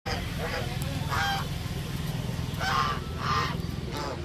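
White domestic geese honking several times, the loudest calls about a second in and twice near the end, over a steady low rumble.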